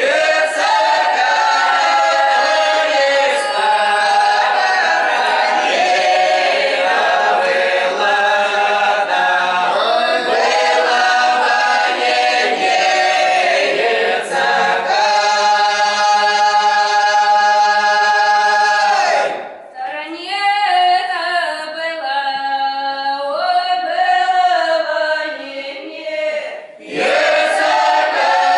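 Mixed-voice Russian folk ensemble singing a round-dance (khorovod) song unaccompanied, in full chorus. A long held chord comes past the middle, and the phrases break off briefly twice in the second half.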